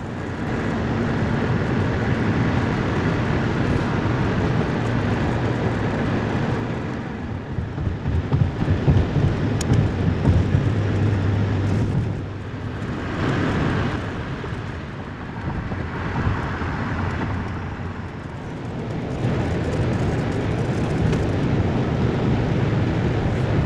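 Truck driving on the road, heard from inside the cab: a steady engine hum and road rumble, rougher and louder for a few seconds around the middle.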